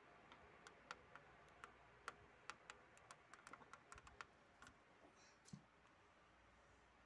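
Faint, quick clicks and taps, bunched in the first four seconds or so and thinning out after: cats' claws and paws on a laminate floor as they play and jump.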